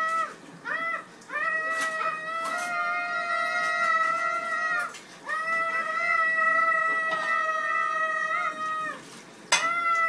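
Young children screaming on purpose, in long high-pitched screams held at a steady pitch: a short one about a second in, then two of about three and a half seconds each with brief breaths between, and another starting near the end.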